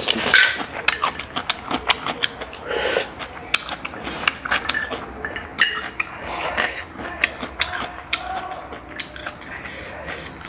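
Close-up eating sounds: grilled apple snail shells clicking and tapping against each other and a ceramic plate as a toothpick pries out the meat. Mouth sounds of eating come in between the clicks.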